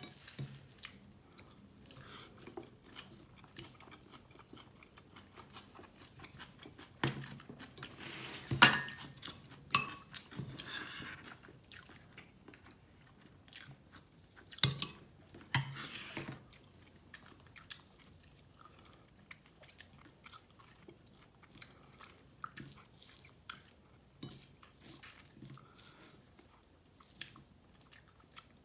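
Close-up chewing and mouth sounds of someone eating beef tehari (biryani) with egg korma, a steady run of small wet clicks and smacks. A few louder sharp knocks, like a utensil or hand against a plate, stand out near the middle.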